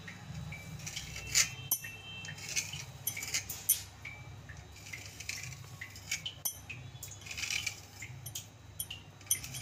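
Irregular light clicks and clinks as a knife cuts soft rolled dough into strips on a wooden board, with glass bangles clinking on the working wrist, over a low steady hum.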